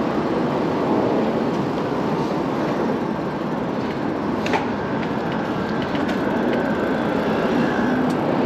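Steady rushing noise of wind and road traffic while riding an e-bike, with a faint high whine in the second half.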